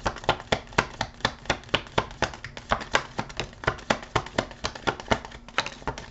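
A deck of tarot cards being shuffled by hand, overhand: a steady run of card clicks and slaps, about four a second.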